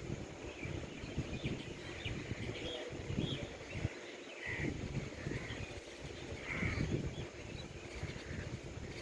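Birds calling: crows cawing a few times, the clearest caws about halfway through and again a couple of seconds later, among short higher chirps, over a steady low rumble.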